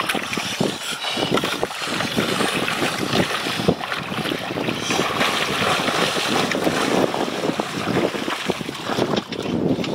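Shallow river water sloshing and splashing under the feet and legs of two people wading, with wind buffeting the microphone.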